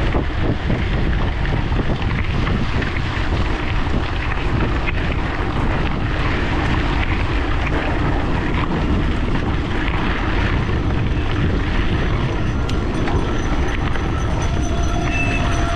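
Steady wind rush over an action camera's microphone and tyre rumble from a bicycle ridden at race speed.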